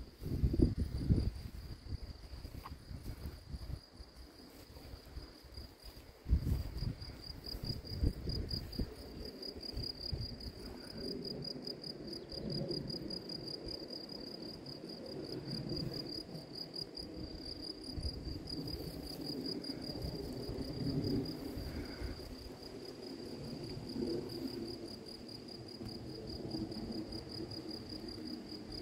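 Field crickets chirping steadily in a high, fast-pulsing trill. Low rumbling gusts of wind on the microphone, loudest about a second in and around six seconds in.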